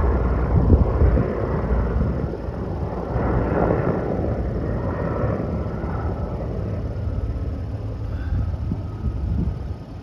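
Firefighting helicopter flying nearby, a steady low rumble that slowly fades.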